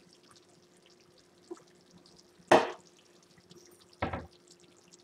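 Thick sloppy joe meat sauce simmering in a pot, with bubbles bursting in short wet plops: a faint one about a second and a half in, a loud one about two and a half seconds in and another about four seconds in, over a faint steady hum.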